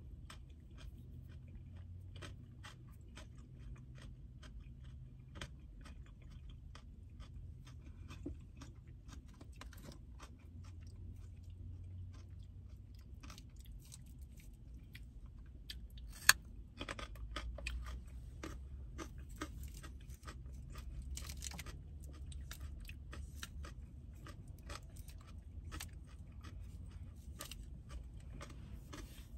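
Close-up chewing of food, with soft crunches and small mouth and food clicks, busier in the second half. A single sharp click stands out a little after halfway.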